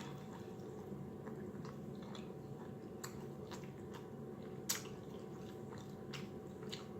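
Close-miked chewing and wet mouth clicks of someone eating, with a sharper click about four and a half seconds in, over a faint steady hum.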